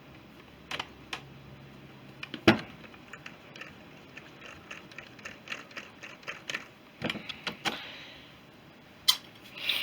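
Small metal parts and tools being handled: scattered clicks and clinks as bolts are fitted by hand during carburettor reassembly, with a louder knock about two and a half seconds in and another near the end.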